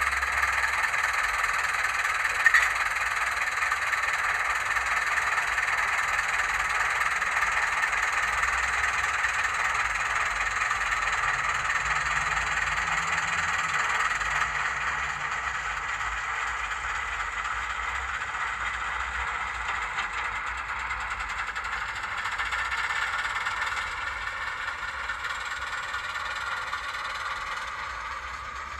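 Zimo sound decoder in a Hornby OO gauge Ruston & Hornsby 88DS model shunter playing its Ruston 88DS diesel engine sound file through a small speaker, running steadily and thin in the bass. There is a single sharp click about two and a half seconds in, and the sound eases down a little around halfway and again near the end.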